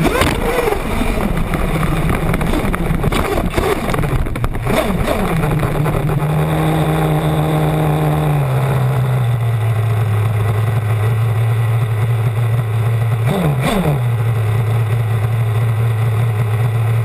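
Small two-stroke nitro engine of a 1/8-scale off-road RC buggy, heard from on board. It revs up and down for the first few seconds while driving, then winds down to a steady idle once the buggy stops, with one short throttle blip about 13 seconds in.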